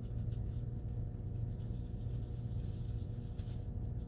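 Paper blending stump rubbed in faint, irregular scratchy strokes over aluminium HVAC duct tape, burnishing the foil down around raised letters so they stand out, over a steady low hum.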